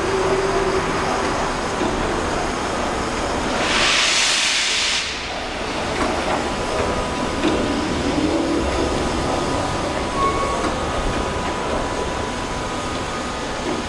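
Steam locomotive 35 1097 starting a heavy twelve-coach train, its exhaust beating steadily under load. About four seconds in, a loud hiss of steam from the cylinder drain cocks lasts a little over a second.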